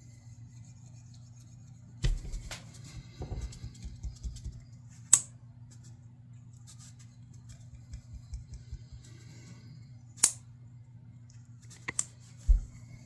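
Several sharp clicks and knocks, with some rustling handling noise between them, over a steady low hum.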